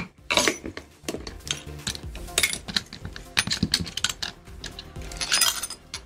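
Light metallic clicks, taps and clinks of a hard drive's internal parts being handled as it is taken apart by hand, some two dozen small knocks at an uneven pace.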